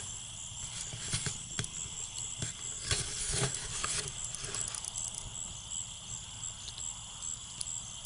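Insects chirping steadily in the grass, with scattered soft knocks and rustles, a little louder about three seconds in.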